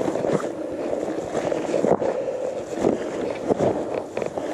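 Gravel bike riding over a leaf-strewn gravel and dirt track: a steady rush of tyres rolling and wind on the microphone, with a few knocks as the bike jolts over bumps.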